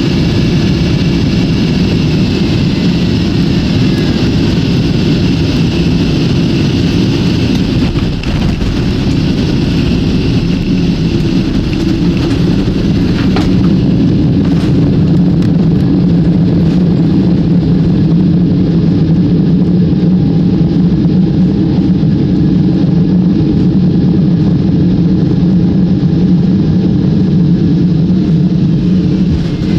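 Jet airliner heard from inside the cabin: a loud, steady mix of engine rumble and rushing air. The higher hiss drops away about halfway through while the low rumble carries on.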